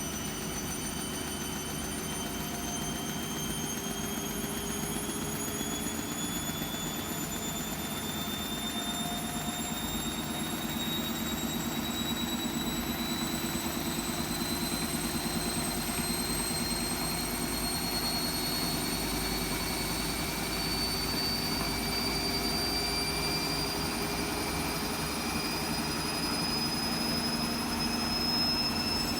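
Hotpoint WMFUG742 washing machine spinning an overloaded load of towels, its motor whine rising slowly and steadily as the drum speeds up.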